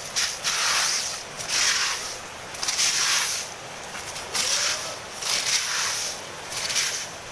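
Hailstorm: hail and rain falling hard, a hiss that swells and fades in waves about once a second.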